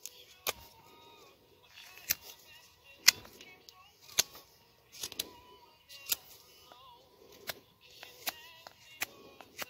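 A Mora knife carving a wooden spatula from dry firewood. Each stroke gives a short, sharp crack as the blade bites and a shaving splits off, about once a second.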